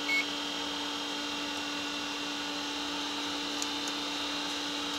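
Steady electrical hum with a high whine from a CNC mill's control electronics and computer. A short high beep sounds right at the start, and a couple of faint clicks come near the end.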